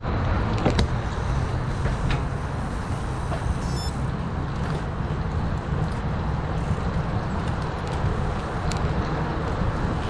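Steady rumble of wind and tyre noise from a mountain bike rolling over pavement, picked up by a camera mounted on the bike, with a few sharp clicks and rattles from the bike.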